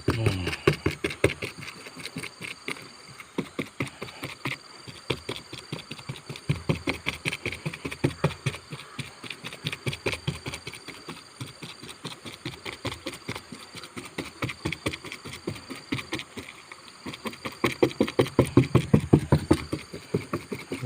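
Fiberglass resin being stirred and mixed in a container: quick, even strokes about five a second, getting louder near the end.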